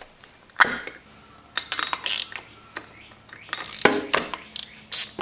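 A spark plug cap pulled off a Yamaha XT225's cylinder head with a sharp snap just over half a second in. This is followed by quick metallic clicks and rattles from a socket wrench fitted to the spark plug and worked to loosen it.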